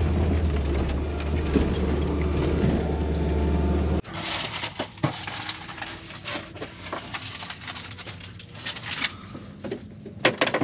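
Steady low engine and road rumble inside the cab of a 1983 Toyota Sunrader 4x4 motorhome driving on a sandy track. After about four seconds it cuts off sharply, and scattered light clicks and knocks follow as someone rummages in the motorhome's wooden cabinets.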